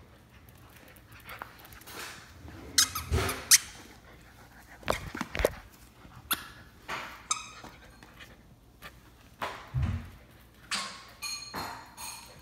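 German Shepherd puppy playing with a plush squeaky toy, squeezing out a string of sharp high squeaks. A few heavier thuds come about 3, 5 and 10 seconds in.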